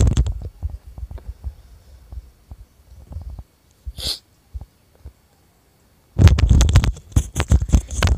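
Raw mutton pieces being tipped into a pressure cooker onto onion masala and pushed around with a metal spatula: dull thuds and knocks, with scattered small clicks between them and a denser run of thuds from about six seconds in.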